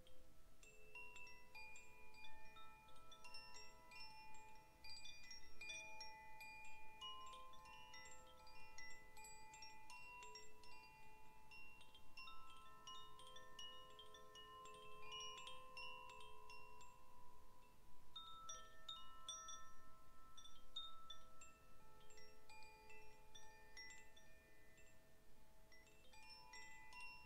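Chimes ringing: many overlapping clear tones at different pitches, struck irregularly and left to ring, with no steady beat.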